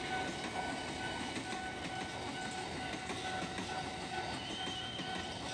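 KRL TM 6000 electric commuter train passing, its wheels clattering over the rail joints in a steady run of noise, with a steady high tone sounding over it.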